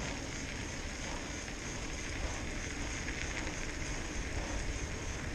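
Mountain bike rolling along a partly snow-covered paved path: the tyres give a steady rushing, crackly noise.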